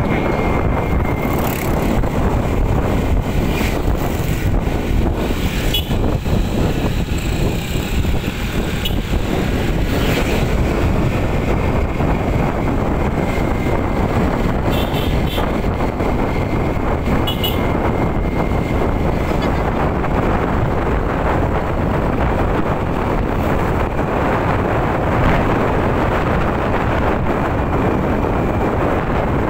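Wind buffeting the microphone of a moving motorbike, over the steady running of small motorbike engines. A faint thin whine fades out about two-thirds of the way through.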